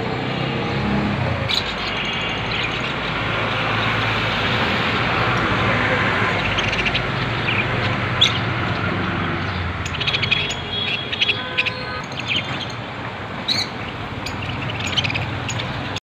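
Budgerigars chirping, short scattered chirps over a steady din of traffic.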